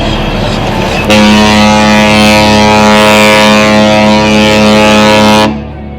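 Cruise ship Carnival Freedom's horn sounding one long, steady blast that starts abruptly about a second in and cuts off shortly before the end, over harbour wind noise.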